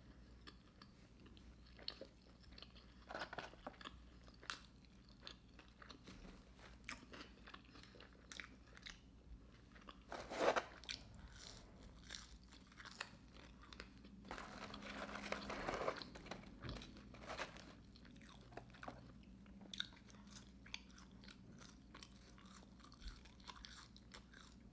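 A person chewing and eating a McRib sandwich and french fries: soft repeated mouth clicks and smacks, with a couple of louder sounds partway through.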